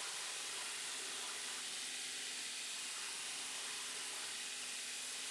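Belt grinder running with a steel knife blade held to its abrasive belt, heard as a faint, steady hiss.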